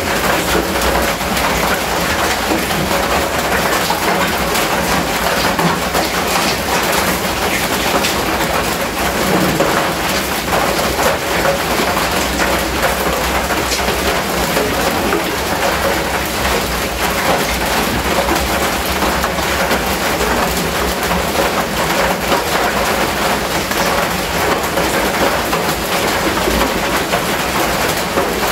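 Heavy rain falling on a corrugated metal roof: a steady, loud hiss with no let-up.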